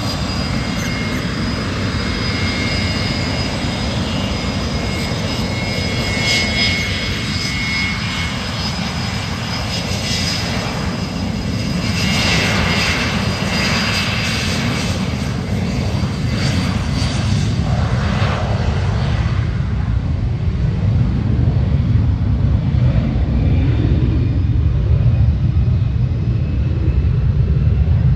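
Private jet's twin rear-mounted jet engines on the takeoff roll. A high turbine whine fades out about two-thirds of the way through, while a low rumble of engine thrust grows louder toward the end.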